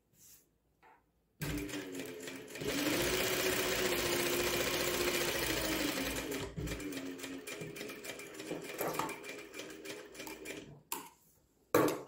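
Sewing machine stitching through blouse fabric and lining. It starts about a second and a half in and runs at full speed for a few seconds with a hum that rises and then falls. It then runs slower in short spurts and stops near the end.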